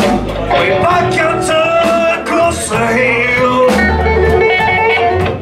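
Live blues band playing a slow blues: harmonica wailing with bent, held notes over electric guitar, bass guitar and a drum kit.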